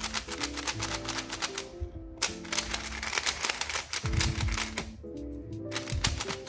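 QiYi Warrior S 3x3 speed cube turned quickly by hand fresh out of the box, its plastic layers giving a rapid run of clicking and clacking with brief pauses, over background music.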